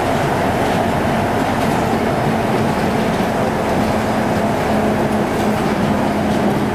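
Yokohama Seaside Line 2000 series rubber-tyred automated guideway train running along the guideway, heard from inside the car. Its running noise is steady, with a continuous low hum and a higher tone under it.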